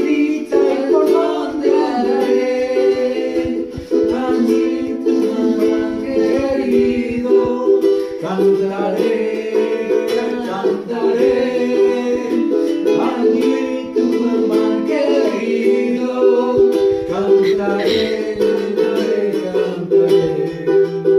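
Ukulele strummed with a man singing along.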